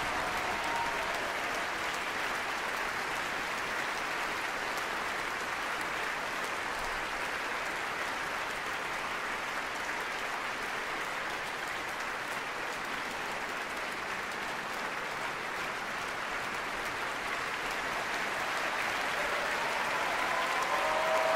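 Large concert-hall audience applauding steadily after a performance, a dense even clapping, with a few voices calling out above it near the end.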